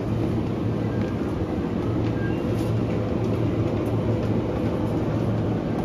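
Steady low hum and rumble of supermarket background noise, with no distinct events.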